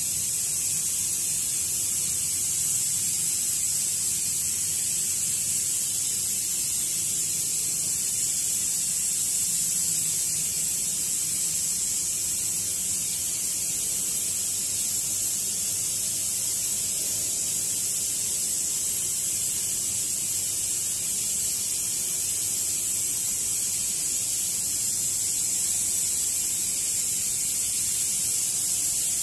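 A steady high-pitched hiss at an even level, with a faint low hum beneath it.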